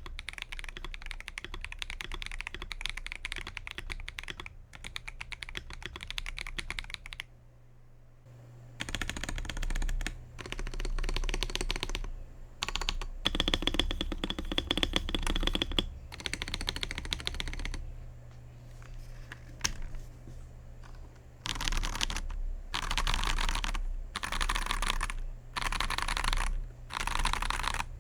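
Akko 5075S mechanical keyboard being typed on in fast runs of keystrokes. There is a short pause about seven seconds in, then bursts of typing broken by brief gaps. A faint steady hum runs underneath.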